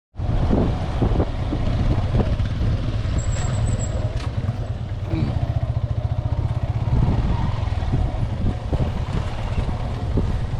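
Motorcycle running steadily while being ridden, with a constant low rumble.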